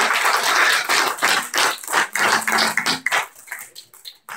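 Congregation applauding, the clapping thinning out to a few scattered claps about three seconds in and stopping near the end.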